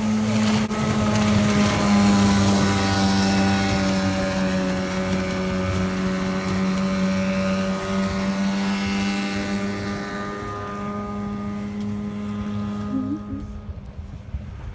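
Johnson GT 10 hp two-stroke outboard on a small sport boat running at speed as it passes close by: the engine note drops in pitch as it goes past, then fades as the boat moves away.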